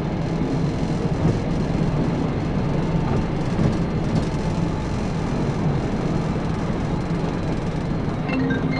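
Steady road, wind and engine noise inside a police patrol car travelling at over 100 mph. Near the end, a few plinking mallet-like notes of music come in over it.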